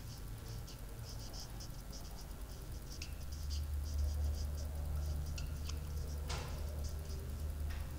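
Marker pen squeaking and scratching on a whiteboard in many short, irregular strokes as words are written, over a low hum that grows louder about three seconds in.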